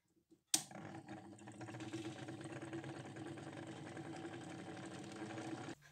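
Watch-parts cleaning machine switched on with a click, its electric motor then running steadily as it spins the parts basket in the jar of cleaning solution. The running sound stops abruptly near the end.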